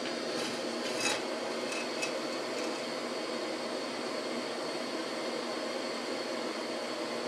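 Steady hiss from a stovetop burner as an oiled aluminium pan heats on it. A few light metal scrapes and clicks fall in the first three seconds, the loudest about a second in.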